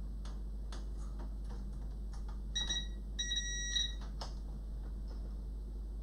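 A multimeter's continuity beeper sounding twice, a brief beep and then a longer one of about half a second, as the probe tips make contact across a connection on the amplifier's circuit board. Faint clicks of the probes tapping run through it over a steady low hum.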